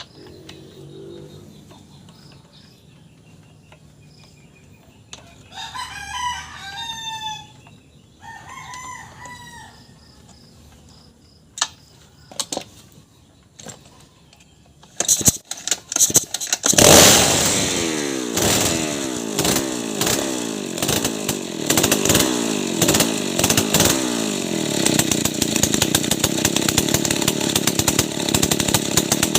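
A rooster crows twice about six seconds in. Then a Stihl 070 two-stroke chainsaw is pull-started with a few sharp pulls, catches about seventeen seconds in and runs loudly, its speed rising and falling. This is a test run after its loose bearing was fixed.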